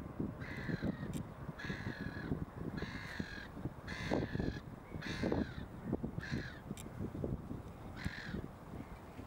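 A crow cawing repeatedly: about seven calls roughly a second apart, each about half a second long.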